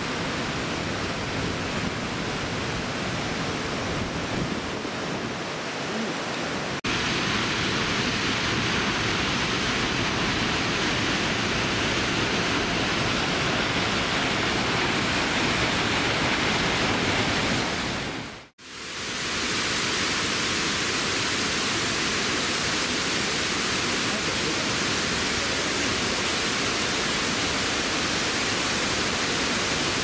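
Steady rush of waterfalls, first Otodome Falls' single large fall, then the wide curtain of many thin falls at Shiraito Falls, pouring into pools. The rush steps up abruptly about seven seconds in and fades briefly to near silence and back a little past the middle.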